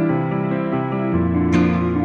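Gentle instrumental background music: a melody of separate struck notes over held chords.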